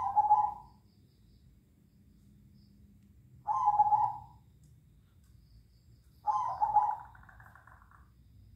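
Caged zebra doves (perkutut) cooing back and forth: three rolling coo phrases about three seconds apart, the last one longer and fuller.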